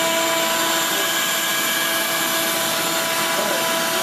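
Steady whine of an electric motor with a rushing of air, running evenly at a constant pitch.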